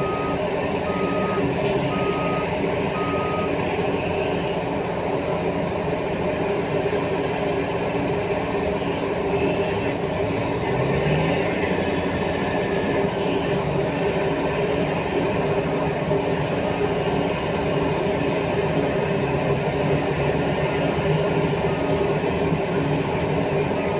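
Heavy diesel engines of mining earthmoving machinery, a large excavator and an articulated dump truck, running steadily under load. A reversing alarm beeps at a steady pace, a little over once a second, for the first three or four seconds, and the engine pitch rises briefly about eleven seconds in.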